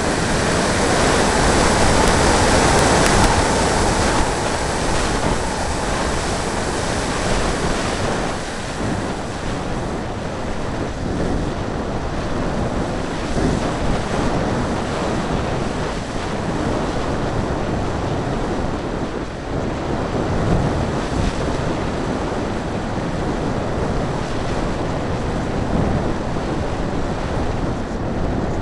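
Airflow rushing over the microphone of a camera riding on a radio-controlled hotliner in flight: a steady wind roar, somewhat louder for the first few seconds.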